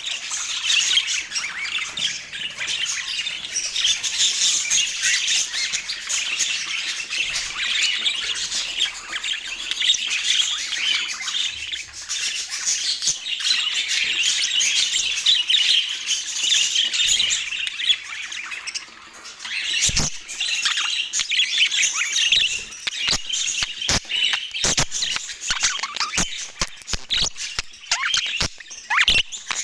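A flock of budgerigars chattering and warbling without a break, with squawks among the chirps. From about two-thirds of the way in, many sharp clicks come in among the calls.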